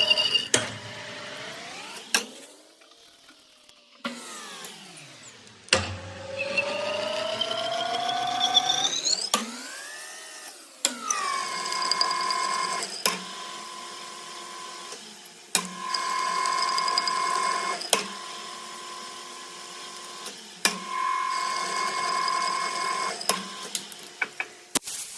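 Small electric motor of a power tool whining, its pitch sliding down and up as it slows and speeds, then holding steady. The whine is broken by brief gaps and sharp clicks every few seconds.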